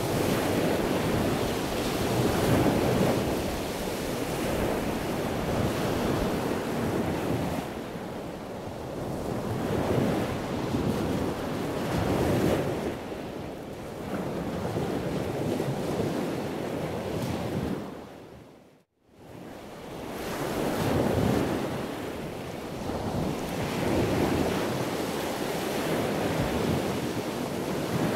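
Wind buffeting the microphone over the wash of ocean waves around a sailboat at sea, surging and easing every couple of seconds. It cuts to a brief silence about two-thirds of the way through, then comes back.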